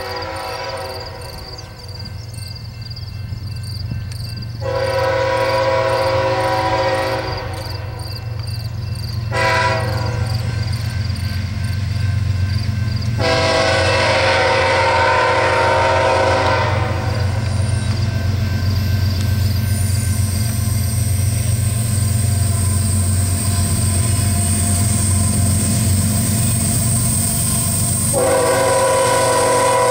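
Diesel freight locomotive's air horn sounding the grade-crossing pattern: long, long, short, then a long blast held about four seconds, with another long blast near the end. Under it, the steady rumble of the approaching diesel locomotives grows louder.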